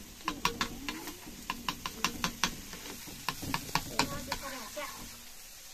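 Chowmein noodles being stirred and tossed in a hot wok, frying, with an irregular run of sharp clicks, two or three a second.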